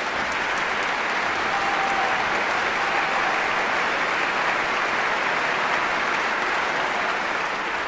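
Concert audience applauding after the final chord of an orchestral performance, a steady dense clapping that begins to fade near the end.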